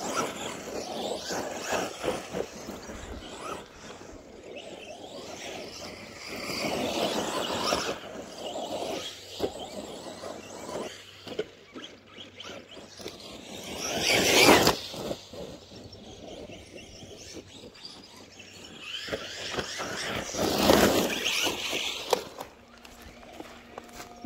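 Arrma Senton RC short-course truck driven in about four bursts of throttle, motor and tyres swelling and fading, the loudest about fourteen seconds in. The truck is running on a differential that has started clicking.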